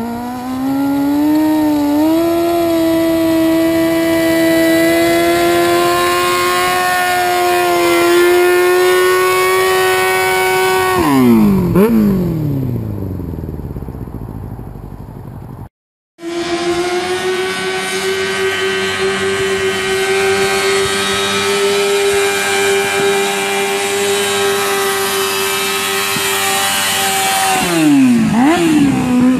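Sport-bike engines held at high, steady revs during burnouts. The first engine holds one high pitch for about eleven seconds, then the revs fall away and the sound fades. After a short break a second bike's engine is held at high revs again, and near the end the revs drop and pick up.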